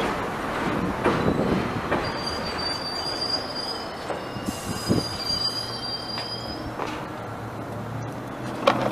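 An R62A subway train pulls into the station. Its wheels clatter at first, then a high-pitched squeal of wheels and brakes holds for several seconds as it slows and stops, with a short hiss about halfway through. A low steady hum from the stopped train follows near the end.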